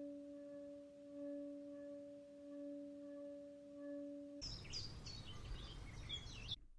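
Stainless steel pot filled with water singing as hands rub its metal handles: a steady humming tone with a higher overtone, swelling and fading with the rubbing. A little past four seconds in it cuts off suddenly, giving way to a couple of seconds of outdoor background noise with birds chirping.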